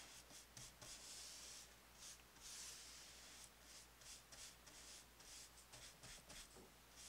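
Faint swishing of a bristle paintbrush stroking thin linseed oil paint onto a wooden window frame: a run of short brush strokes, with a couple of longer ones.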